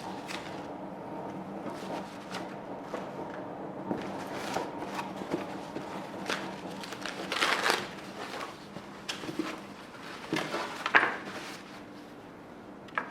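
Hands unpacking and handling the plane kit's parts and packaging: scattered rustles and light knocks, over a faint steady hum.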